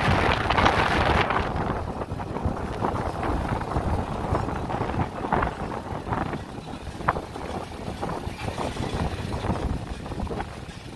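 Vehicle driving along, with wind buffeting the microphone, strongest in the first second or so, and scattered small knocks and rattles.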